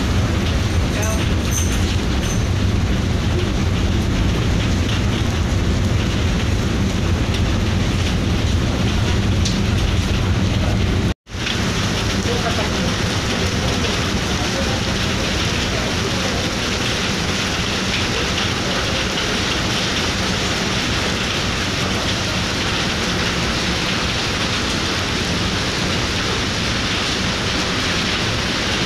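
Steady rushing noise on the open deck of a ferry: wind on the microphone over the low hum of the ship's engines. It cuts out for a moment about eleven seconds in, then goes on with a brighter hiss.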